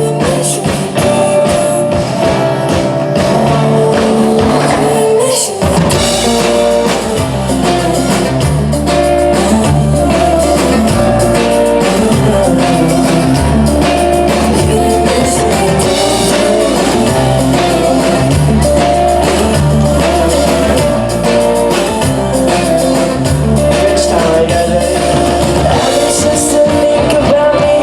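Live pop band playing through a stage PA, with guitar and keys; about six seconds in the bass and drum kit come in and the full band carries on.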